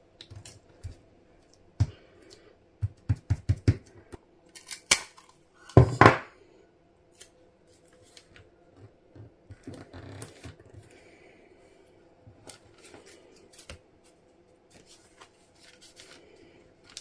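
Paper packaging being handled on a wooden desk: envelopes, sticker sheets and washi tape rustling and sliding, with light taps. There is a quick run of clicks about three seconds in and a loud short rasp of paper or tape about six seconds in.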